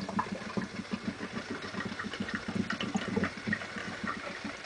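HHO gas from a water-electrolysis cell bubbling hard through water into an upturned collection container, a steady rapid gurgle of short pulses with small scattered pops. The fast bubbling is the sign of a high gas output: 450 ml is collected in about 8 seconds.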